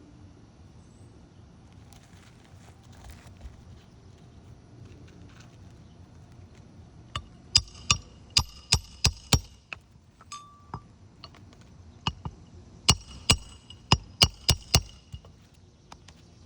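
Two runs of about six sharp metal-on-metal hammer strikes, a bit under half a second apart, each with a brief ringing, plus a few lighter taps: roofing tools at work on asphalt shingles.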